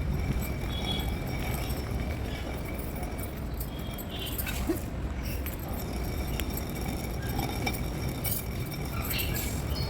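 Tiragali, a hand-turned stone grinder, grinding masala with a steady low rumble, with scattered light clinks on top.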